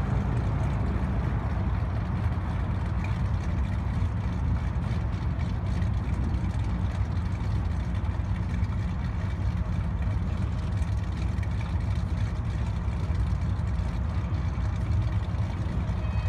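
Classic muscle car's engine idling steadily with a deep, low note as the car creeps forward and waits to pull out.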